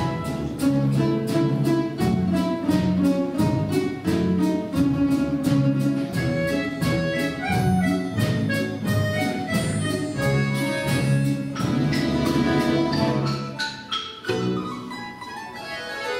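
Russian folk instrument orchestra of domras and balalaikas playing a folk-song arrangement in steady, evenly repeated plucked strokes; about fourteen seconds in the music drops to a softer passage.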